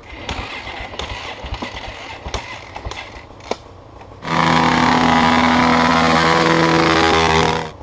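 Enduro dirt-bike engine held at high revs at a steady pitch for about three seconds, then dropping off near the end, as the bike is driven out of a muddy creek. Before it come scattered knocks and rustling.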